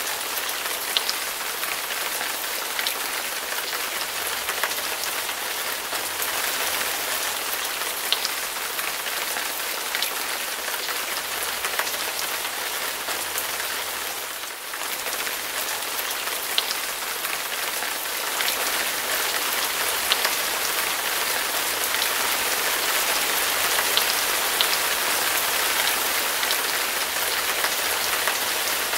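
Rain hitting a car's windshield, heard from inside the moving car: a steady hiss with scattered sharper drop strikes, dipping briefly about halfway through.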